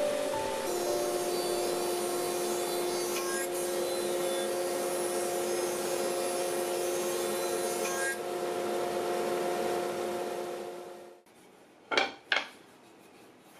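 Thickness planer running with its dust extraction, planing a wooden board; the loud cutting noise eases after about eight seconds and then cuts off suddenly. Two sharp wooden knocks follow as strips of wood are set down on a workbench.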